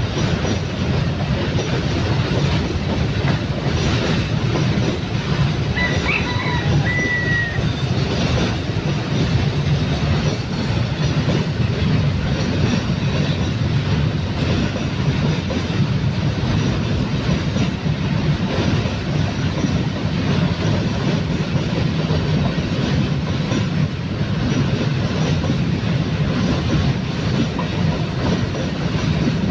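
Loaded coal freight train rolling past, its wagons' wheels clicking steadily over the rail joints with a continuous low rumble. A brief high squeal comes about six seconds in.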